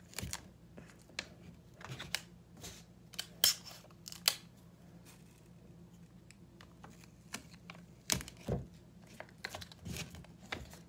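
Printed paper and clear tape being handled and pressed by hand onto a wooden fingerboard obstacle: scattered rustles, crinkles and sharp little clicks, with a few louder snaps about three and a half and four seconds in and again around eight seconds.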